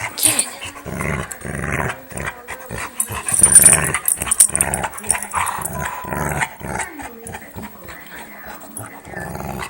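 Dogs growling in play while tussling over a plastic ring toy, a string of short rough growls with scuffling, loudest a few seconds in.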